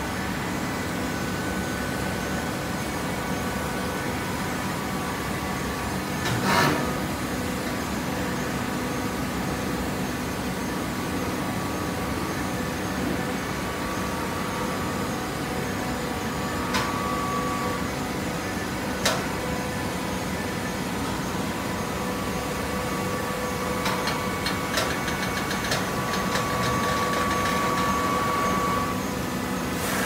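TCM horizontal hydraulic baler running: a steady machine hum with several held tones. A single knock comes about six seconds in, sharp clicks follow later, and a higher whine grows louder near the end.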